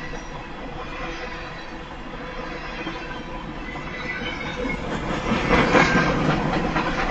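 Freight cars of a CSX mixed freight train rolling past, steel wheels clattering steadily on the rails, growing louder about five seconds in.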